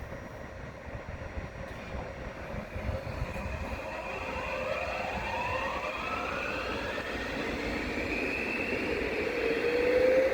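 Train accelerating over a low rumble, a whine from its traction motors rising steadily in pitch from about four seconds in; near the end a second, lower whine starts climbing.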